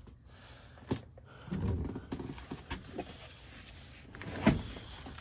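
Footsteps and irregular knocks on wooden boards, with a sharp knock about a second in and a louder thump about four and a half seconds in.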